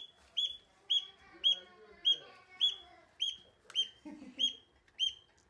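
A yellow duckling peeping: short, high-pitched peeps repeated evenly, about two a second.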